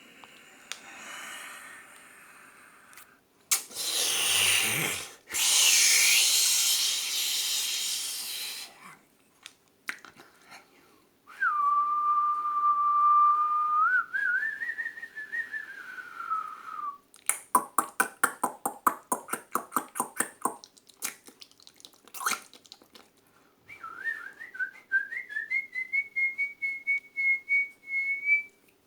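A person making nature sounds with the mouth. First comes a breathy blown hiss like wind. Then a held whistle that rises and falls, a fast run of tongue clicks, and a chirping, bird-like whistle that climbs in pitch.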